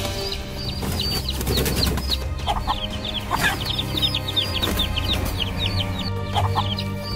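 Chicks peeping in a rapid stream of short, high, falling calls. An adult chicken gives a few louder, lower squawks about a third of the way in, near the middle and near the end. Background music runs underneath.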